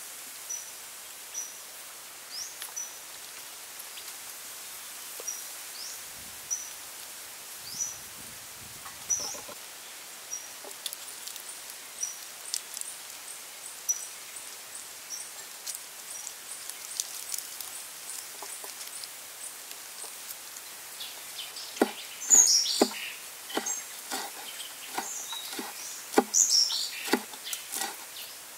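A bird's short high chirp repeating about once a second over quiet outdoor ambience. About three-quarters of the way in, a large knife starts chopping red chillies on a wooden stump block, in quick sharp knocks that are the loudest sounds.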